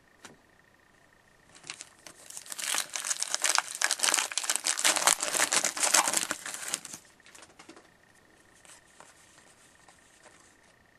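A 2013-14 O-Pee-Chee hockey card pack wrapper being torn open and crinkled by hand for about five seconds, starting near two seconds in. Then faint rustling as the cards are handled.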